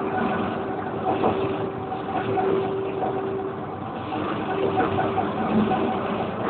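A TramBaix Alstom Citadis tram running between stops, heard from inside the passenger car: a steady rumble of wheels on the rails with a faint motor hum that fades in and out.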